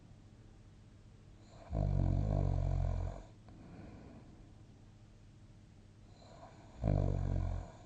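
A sleeping person snoring: two loud, low, rattling snores about five seconds apart, the first about a second and a half long and the second shorter, with quiet breathing between.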